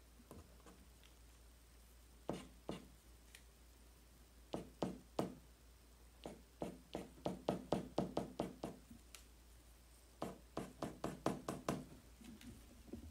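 Charcoal stick striking the paper in quick, hard strokes against a wooden drawing board, heard as sharp knocks in bursts: two a couple of seconds in, then runs of several a second through the middle and again near the end.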